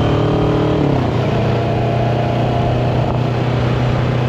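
Motorcycle engine running on the move. Its pitch drops about a second in, as when the throttle is rolled off or the bike shifts up, then holds steady.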